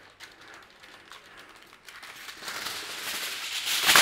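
Aluminium foil being drawn off its roll from the box, rustling and crinkling. It grows louder over the last two seconds to a sharp crackle at the very end.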